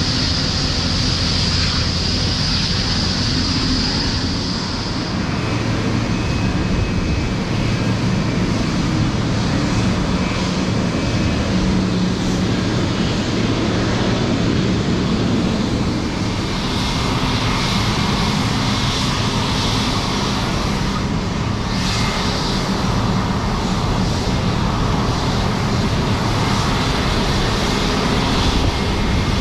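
Airliner engines running steadily, with a high whine over the first four seconds that then fades, and a high band that returns past the middle.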